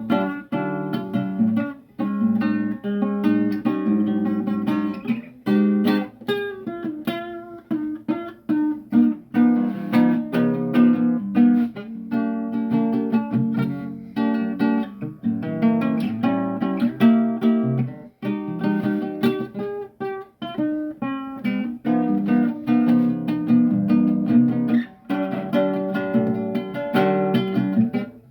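Acoustic guitar played solo in an improvised piece, plucked notes and strummed chords in quick succession.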